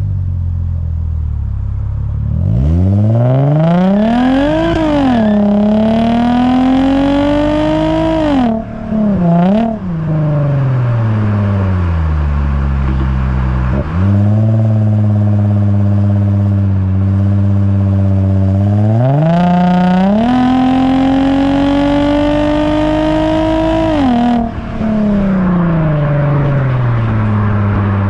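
Lexus IS350's 3.5-litre V6 exhaust through an HKS Hi Power catback and Invidia midpipe, heard right at the tailpipe on the move. The note climbs in pitch under two pulls. The first pull is broken by an upshift about five seconds in, and each pull falls away as the throttle lifts. Between the pulls the engine holds a steadier cruising drone.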